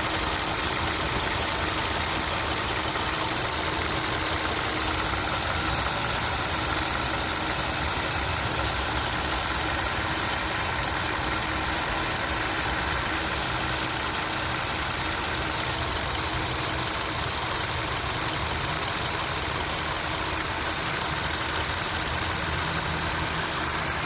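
Engine idling with a steady, regular ticking from the engine.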